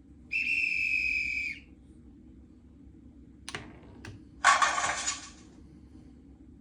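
A steady, high electronic beep lasting just over a second, then two short sharp knocks and, about four and a half seconds in, a louder short noisy crash, typical of a ball striking the sensor-fitted goal panel.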